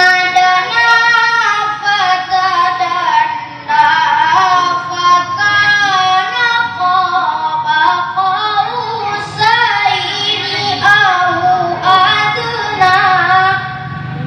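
A boy reciting the Qur'an in melodic tilawah style: a high chanted voice in long phrases, with winding, ornamented pitch and brief breaks between phrases.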